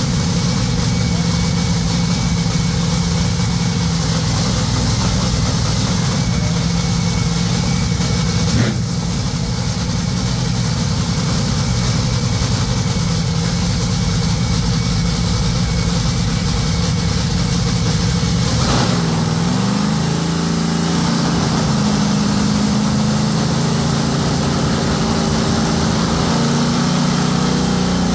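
Top Fuel dragster's supercharged nitromethane Hemi V8 running in a pit warm-up: a steady, loud idle with a brief sharp crack about nine seconds in, then from about two-thirds of the way through the note steps up and down as the throttle is worked.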